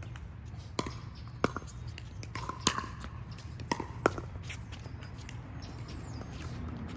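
Pickleball paddles hitting a plastic pickleball during a rally: about five sharp, ringing pops over the first four seconds, then only low background noise.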